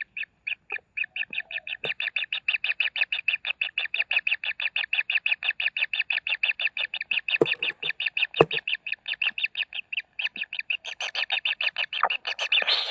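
Kingfisher chicks begging with a rapid, unbroken train of short, high, rasping calls, about seven a second. Two sharp knocks come near the middle.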